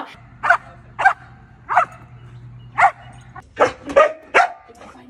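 Belgian Malinois barking: a string of about eight short, sharp barks at uneven intervals.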